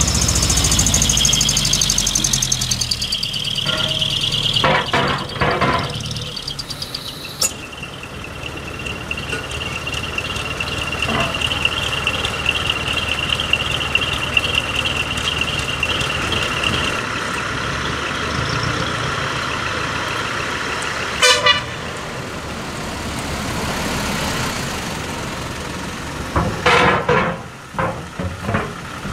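Small decorated trucks pulling away, their diesel engines running, with horn toots: a sounding near the start and short blasts about three quarters of the way in and near the end.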